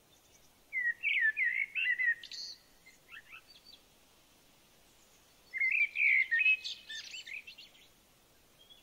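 A small songbird singing two short warbling phrases of quick, varied notes. The first comes about a second in and the second about five and a half seconds in, with a quiet pause between them.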